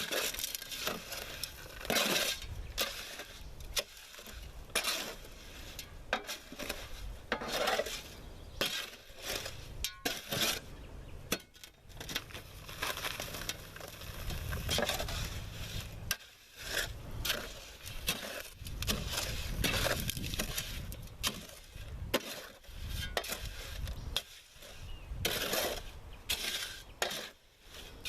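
Wet concrete being mixed by hand in a wheelbarrow: repeated scraping strokes of a tool through the soupy mix and against the wheelbarrow's tray, one every second or two.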